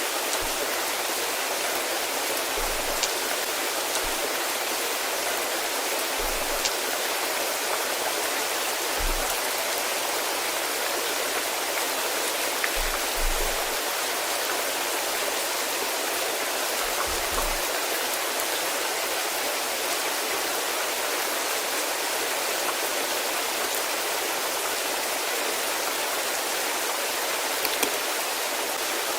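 Steady rainfall, an even hiss without a break. A few soft, low thuds come through now and then.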